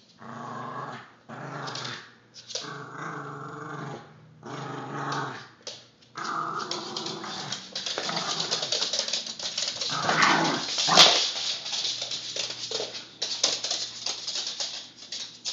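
Yorkshire terrier growling in a string of short bursts. From about halfway on there is a long stretch of scuffling and rustling noise, with one sharp click about eleven seconds in.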